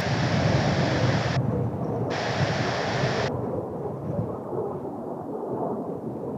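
Low, steady rumble of Blue Impulse Kawasaki T-4 jets' turbofan engines, mixed with wind. In the first three seconds a hiss switches on and off abruptly twice.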